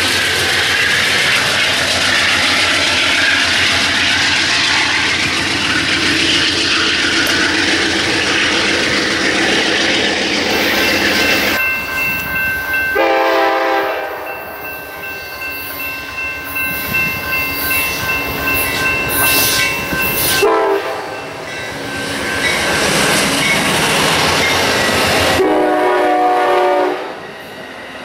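An Amtrak GE Genesis diesel locomotive and train running close by with a loud, even rumble. After that a train's air horn sounds three times: a blast about halfway through, a short one a few seconds later, and a longer one near the end. Bilevel passenger coaches roll by, their wheels clicking over the rail joints.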